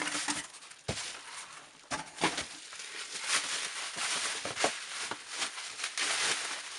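Cardboard shoe box and its packaging being handled, with rustling and scattered clicks and knocks.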